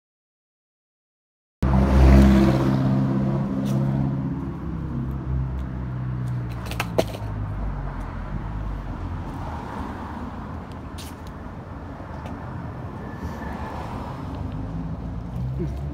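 Silent for about the first second and a half, then a motor vehicle's engine running close by, its low steady hum fading over the next several seconds. Under it runs the steady rolling rumble of skateboard wheels on a concrete sidewalk, with a few sharp clacks.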